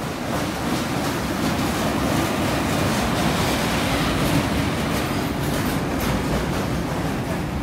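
Electric locomotive and a train of flat wagons loaded with lorries passing by: a steady rumble and rattle of wheels and wagons that swells slightly in the first half second and then holds.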